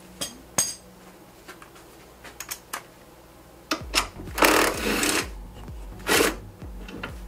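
Cordless power wrench with a 17 mm socket spinning a nut off the engine's top mount: one run of about a second just past the middle and a shorter burst about a second later, the loudest sounds here. Before it, light metal clicks as the socket is fitted onto the nut.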